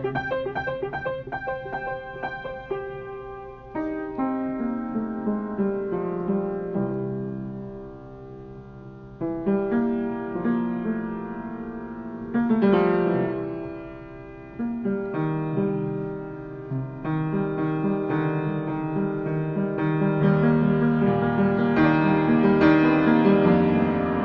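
Piano playing an improvised theme of quick, moving runs and chords, in phrases that break off and start again every few seconds and swell louder near the end.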